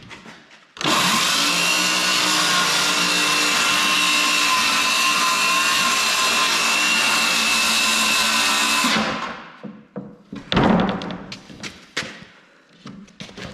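Electric power tool starting abruptly and running steadily for about eight seconds, then winding down, followed by a few knocks.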